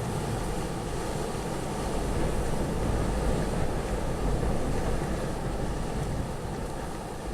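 Storm-force wind blowing in gusts, with a deep rumble of wind on the microphone; it swells about two seconds in and eases near the end.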